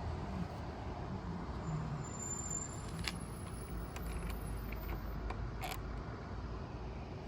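A vehicle engine running steadily with a low rumble, with a few light clicks about three and six seconds in.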